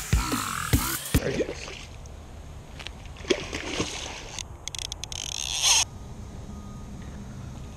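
Electronic dance music with a heavy beat cuts off about a second in, giving way to a hooked fish splashing at the water's surface, with a louder burst of splashing a little past the middle.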